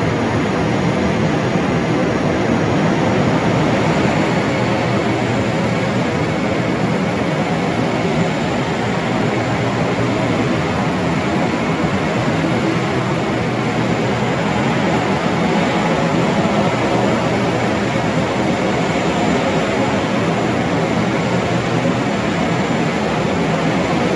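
Airport tarmac ambience: steady noise of aircraft jet engines running, with a faint high whine.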